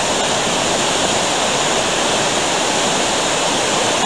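Water rushing steadily over the rocks of a shallow creek, a continuous even rush of fast-flowing water.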